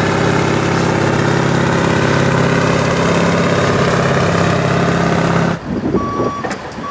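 Scania V8 diesel truck engine running steadily at low revs as the bonneted tractor unit pulls slowly away. It cuts off suddenly near the end, and a reversing alarm beeps.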